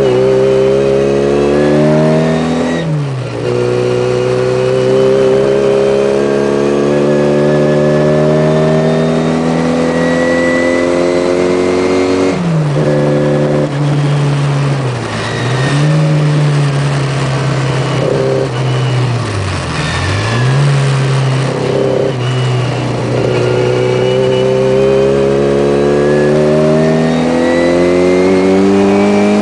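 Tuned classic Mini's A-series four-cylinder engine heard from inside the car, revving hard under acceleration: long, slowly rising pulls in gear, with the pitch dropping sharply at gearchanges about three seconds in, about twelve seconds in and at the very end. In between, the revs dip twice and recover before the engine pulls up again.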